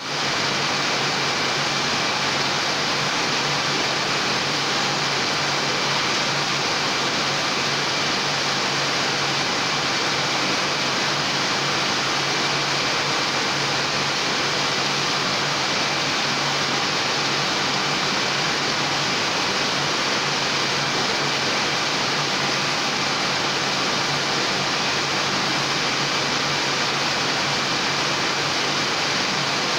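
Heidelberg SM 74 offset printing press running at speed: a loud, even mechanical whir and hiss with a low hum and a thin high whine.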